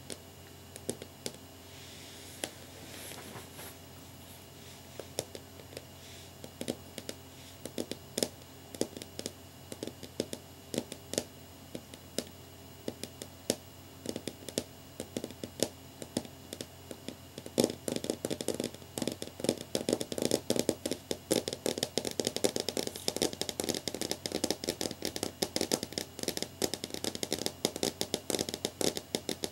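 Long fingernails tapping on a clear flat pane: scattered single taps at first, then, a little past halfway, fast continuous drumming of the nails.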